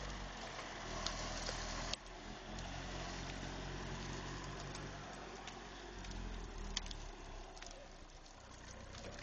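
Old Hough model HE wheel loader's engine running steadily at a constant speed, with a few sharp clicks and knocks over it.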